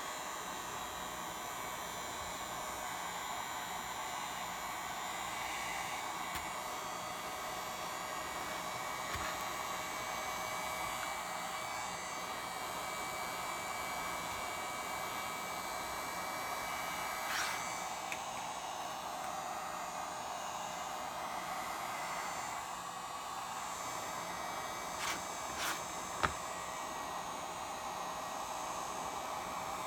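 Hot-air tool set to a low 650 degrees blowing steadily, heating the iPad's glass to soften the screen adhesive. A few small clicks and taps come through, one about midway and a couple more near the end.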